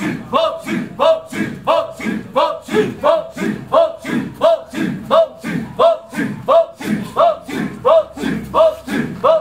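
Balinese Kecak chant: a large male chorus chanting interlocking 'cak' syllables in a fast, steady rhythm. Over it, a short rising sung call repeats about every 0.7 seconds.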